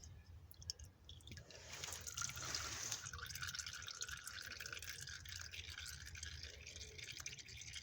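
Engine oil draining from the oil filter mount of a Camaro's 2.0-litre turbo LTG engine into a drain pan: a brief gush about two seconds in, then a steady trickle.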